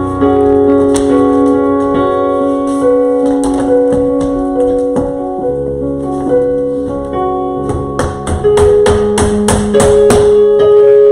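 Keyboard music playing sustained chords with a slow melody line. About eight seconds in, a light, regular percussive beat joins it.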